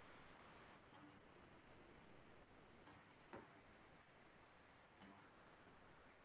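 Three sharp clicks about two seconds apart, with a softer click just after the second, over faint room tone.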